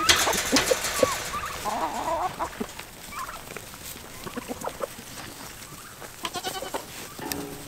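Goats bleating and poultry clucking as the herd crowds in at feeding time: many short calls at varied pitches, loudest in the first couple of seconds and thinning out after that.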